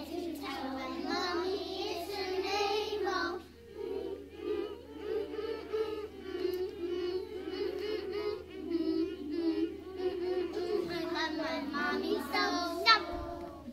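A class of preschool children singing a song together, with a short break about three and a half seconds in; the singing stops near the end.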